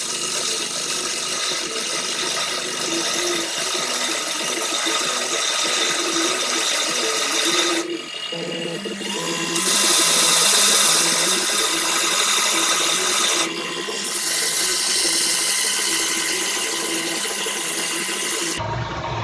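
A power tool running steadily as it cuts down a small metal screw. It grows louder and harsher for a few seconds in the middle, then stops abruptly near the end.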